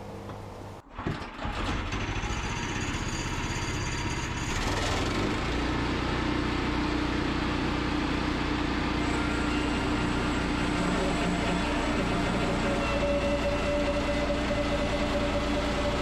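Woodland Mills HM122 portable bandsaw mill running, its band blade cutting along the top of a cant in a skimming pass. A steady engine-and-saw drone begins about a second in and grows deeper and fuller about five seconds in.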